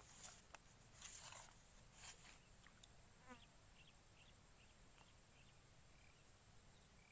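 Faint outdoor insect drone, one steady high-pitched tone, with a few soft rustles and clicks in the first couple of seconds and scattered faint short chirps around the middle.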